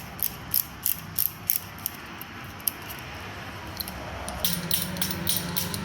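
Socket ratchet clicking in repeated strokes while turning a T40 Torx bolt, about three clicks a second; the clicking stops for a couple of seconds, then starts again faster near the end.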